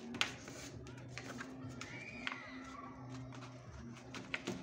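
A sheet of paper being folded and creased by hand on a wooden tabletop: scattered crinkles and taps, with a sharp crackle just after the start and another near the end, over a low steady hum.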